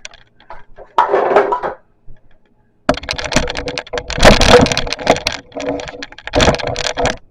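Rapid, irregular clicking and clattering of hard plastic controller stands being handled, with a short rustle about a second in.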